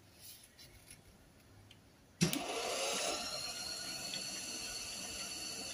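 Quiet room for about two seconds, then a workshop machine's electric motor switches on with a sharp click, spins up and runs steadily with a high whine.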